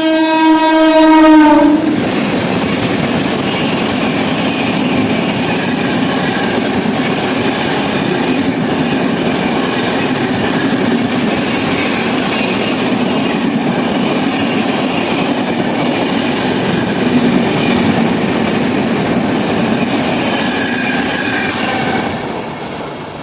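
Air horn of a WAP-7 electric locomotive sounding one loud, steady blast that stops about two seconds in. After it, a long express train's coaches rush past at about 130 km/h in a continuous roar of wheels on rails, fading near the end.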